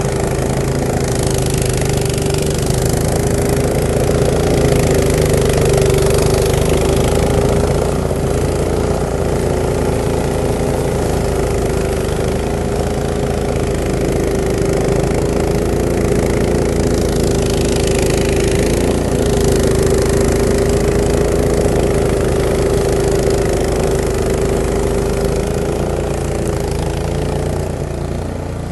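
Three-stage wheeled snowblower's 420 cc OHV petrol engine running steadily under load while its augers chew through wet, slushy snow and the chute throws it. A rushing hiss of thrown snow swells twice, shortly after the start and about two-thirds of the way through.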